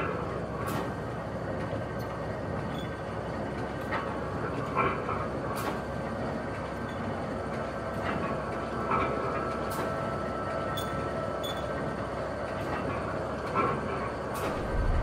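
Steady mechanical rumble and hiss, like a train's, with irregular sharp knocks every second or so. A thin high tone runs for a few seconds in the middle.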